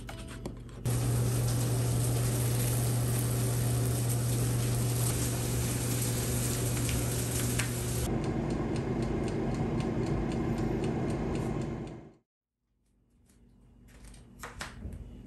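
Steady hum of a motor-driven fan with a strong low drone and hiss, starting about a second in. It changes tone about eight seconds in and fades out around twelve seconds, followed by a few light clicks near the end.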